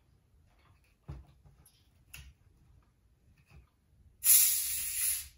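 Plastic Coca-Cola bottle being twisted open: a sudden loud hiss of escaping carbonation gas about four seconds in, lasting about a second before it cuts off.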